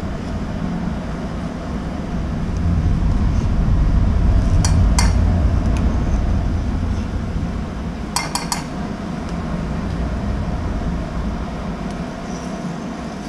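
Kitchenware clinking, with two short groups of clinks about five and eight seconds in, over a steady low rumble that swells a little after the first couple of seconds.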